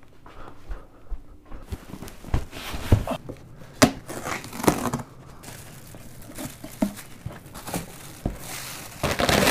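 A cardboard box being cut open with a knife, with irregular sharp clicks, then the grey plastic wrapping inside crinkling as hands pull it aside, denser in the second half.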